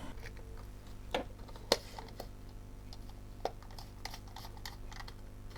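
Scattered light plastic clicks and taps as the parts of a Lavazza coffee machine's casing are handled and fitted back together, the sharpest about a second and a half in, with a quick run of small clicks near the end.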